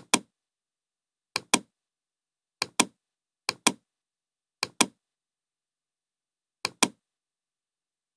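Computer mouse button clicked six times, each click a quick pair of sharp ticks from the press and the release, a second or two apart.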